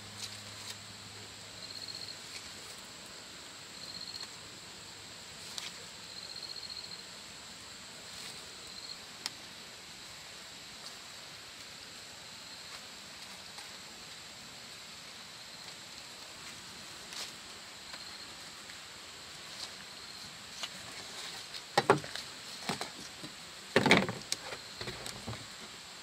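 Insects chirping in short, repeated high trills over a quiet rural background. Near the end come a few loud, sharp knocks and clatters.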